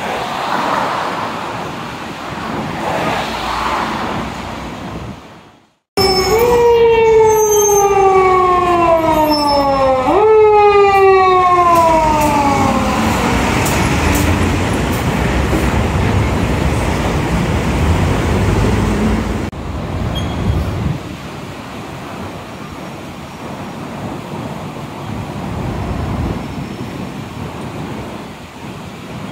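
Road traffic noise, then, after a sudden cut, a Japanese police patrol car's siren sounding two long wails, each jumping up and falling slowly in pitch over about four seconds, as the car makes an emergency run. Loud traffic noise follows and drops quieter past the middle.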